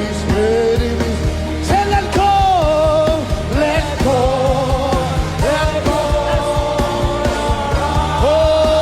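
Live gospel worship music: sung vocal lines with long held and sliding notes over a steady band backing with a strong bass.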